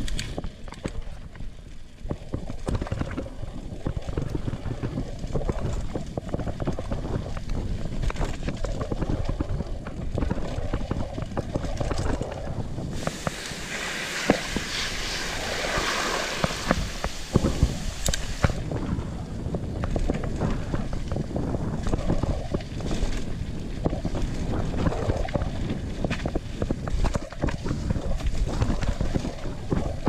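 Mountain bike riding over a rough dirt trail: wind on the microphone and tyre noise, with the bike rattling and knocking over bumps. From about 13 to 18 seconds in, a louder hiss as the tyres run through a wet, muddy stretch.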